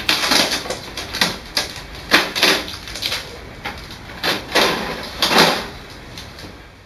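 Plastic paper-input trays of an HP OfficeJet Pro 7730 printer being handled: a tray is slid and pushed shut while a cardboard insert is pulled out, giving a run of knocks, clacks and scraping.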